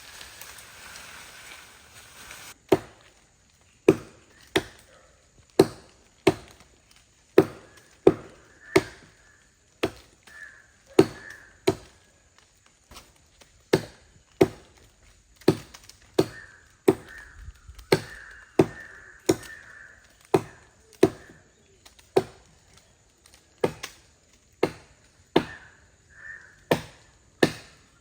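Wood being chopped by hand with an axe: a long series of sharp strikes, roughly one a second, beginning a couple of seconds in after a short stretch of soft rustling.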